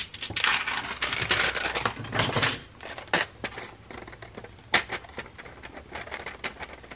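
Paper rustling and sliding as a paper-covered envelope is handled and flipped over, with a few sharp taps.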